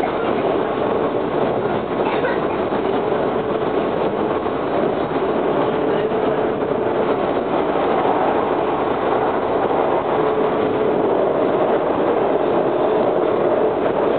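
Breda 4000-series Metrorail car, driven by Westinghouse 1462 DC traction motors, running steadily, heard from inside the car: an even rolling and running noise with a faint steady tone.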